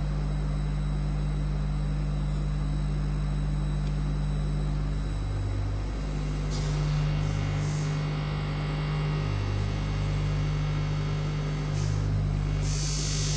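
A steady low hum made of several low tones, with short hissing swells about six and a half seconds in and again near the end.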